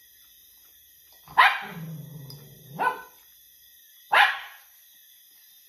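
A dog barking: a sharp bark about a second and a half in, a low growl running on for about a second after it, another bark just before three seconds, and a third loud bark a little past four seconds.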